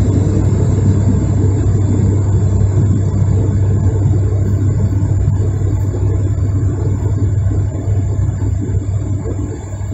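Steady cabin drone of an ATR 72's twin turboprop engines and propellers in flight, a loud deep hum that eases slightly near the end.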